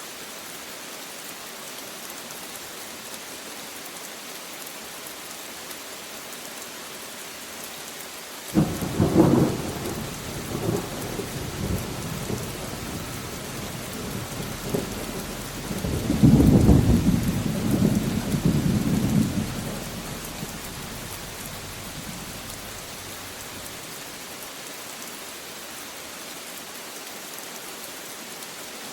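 Steady rain falling, with thunder: a sudden crack and rumble about a third of the way in, then a second, louder roll of thunder that swells and fades away over several seconds.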